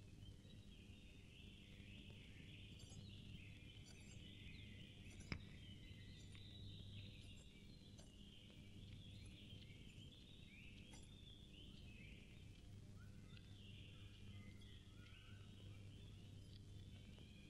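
Faint chorus of birds chirping, many short calls overlapping, over a low steady hum. A single sharp click about five seconds in.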